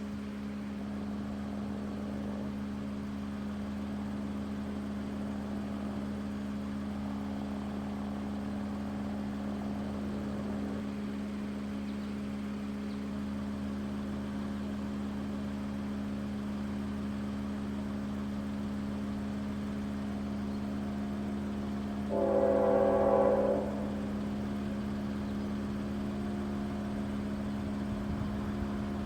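CSX freight train's diesel locomotive running with a steady low hum, and one short blast of its multi-note air horn about 22 seconds in.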